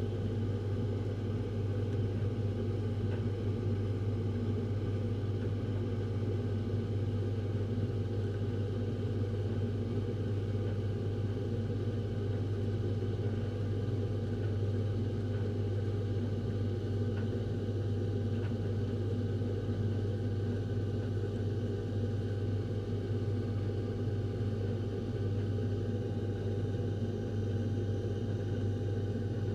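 A refrigerator droning: a steady low hum with fainter, even tones layered above it, holding at one level without change.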